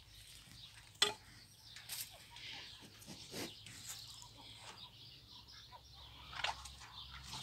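Farmyard poultry clucking quietly in short, scattered calls, with a few sharp knocks, the loudest about a second in.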